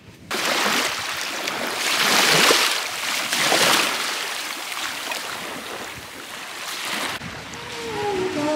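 Small waves washing up on a sandy beach around bare feet, with wind buffeting the microphone, loudest about two and three and a half seconds in. Near the end the surf noise drops away and a melody begins.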